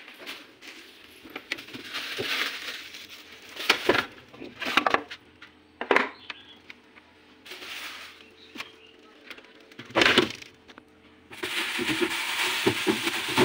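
Rummaging in a refrigerator: a few sharp knocks and clinks of the door, shelves and items, and plastic bags of vegetables rustling as they are handled. The rustling is loudest and longest near the end.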